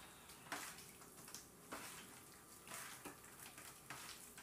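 Hands tossing and squeezing seasoned raw chicken strips in a metal baking pan: faint, irregular wet squishes and slaps.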